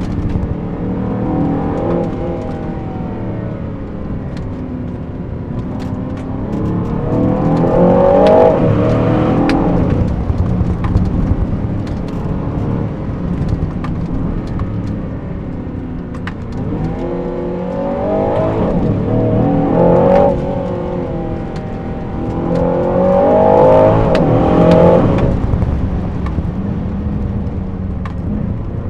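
Aston Martin DBX707's twin-turbo 4.0-litre V8 accelerating hard through the gears three times, its pitch climbing and then dropping at each upshift, with a steadier drone in between.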